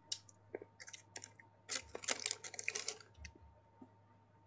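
Typing on a computer keyboard: irregular runs of quick key clicks, densest in the middle, then a few stray taps.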